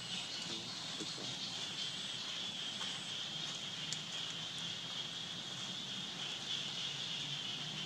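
Steady high-pitched drone of insects, with a few faint clicks.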